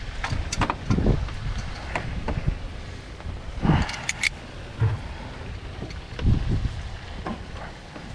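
Wind buffeting the microphone, with scattered clicks and knocks of hands and tools working on an engine's coolant hoses.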